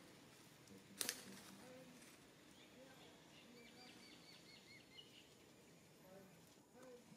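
Quiet outdoor ambience with a faint, quick run of small high bird chirps a few seconds in, and a single sharp click about a second in.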